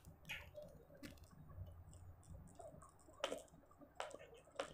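Plastic pump of a Lifebuoy hand sanitizer bottle being pressed to dispense gel into a palm: a few faint clicks, the loudest about three seconds in.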